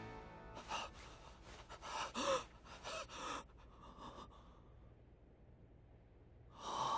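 A man gasping and breathing hard in short, uneven breaths, with one louder gasp near the end: the shaken breathing of someone jolted awake from a nightmare.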